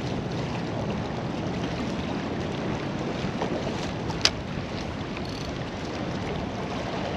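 Steady wind and water noise, with a single sharp click about four seconds in.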